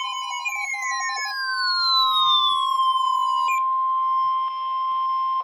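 NOAA Weather Radio warning alarm tone: a steady high tone near 1 kHz with other tones sliding down in pitch over it. It cuts off sharply near the end, and signals that a warning is about to be broadcast.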